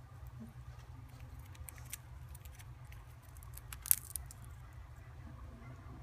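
Senegal parrot gnawing a nut held in its foot: its beak nibbles at the shell in scattered small clicks, with one sharp crack about four seconds in. A steady low hum runs underneath.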